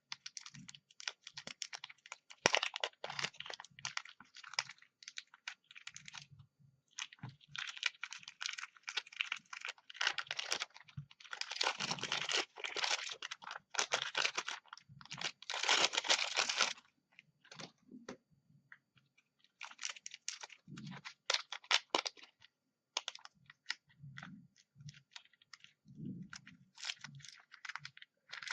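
White slime with clay worked into it being kneaded and poked by hand: irregular runs of wet crackling clicks and pops, with short pauses between.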